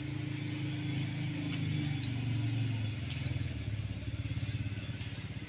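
A motor vehicle engine running steadily, a low hum whose level pulses rapidly from about halfway, with a few faint clicks of small metal parts being handled.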